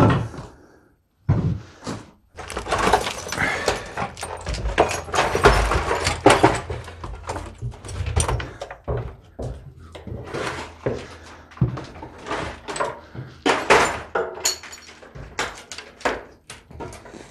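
Footsteps going down wooden stairs into a basement: a long run of uneven thuds and scuffs on the treads.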